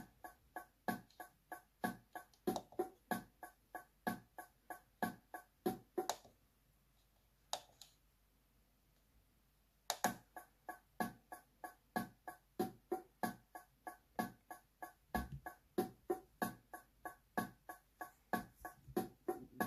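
The built-in auto-accompaniment rhythm of a SouidMy G-310W digital keyboard plays a steady beat pattern through the instrument's speakers. It stops about six seconds in and starts up again at about ten seconds, this time with its intro variation.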